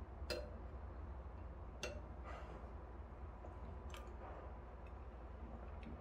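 Faint clicks of chopsticks and a spoon against ceramic bowls and dishes at a meal, three clearer taps and a few fainter ones, over a low steady hum.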